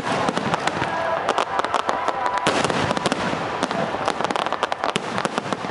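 Aerial fireworks barrage: many shells bursting and crackling in rapid, irregular succession, one bang overlapping the next with no pause.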